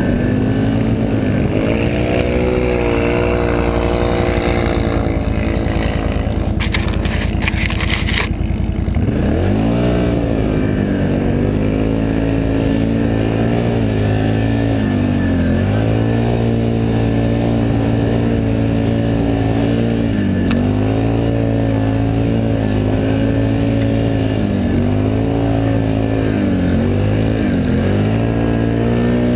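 Can-Am Outlander 1000 XT's V-twin engine pulling the tracked ATV through deep snow, its pitch dipping and climbing again and again with the throttle. About seven seconds in, a harsh scraping noise lasts a couple of seconds over the engine.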